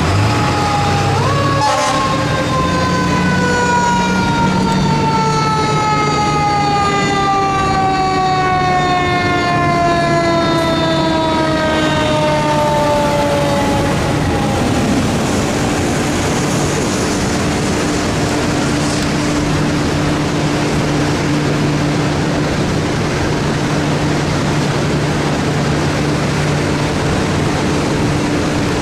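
Fire truck siren winding down: one long, slow fall in pitch that fades out about halfway through. A steady low engine and traffic drone runs underneath.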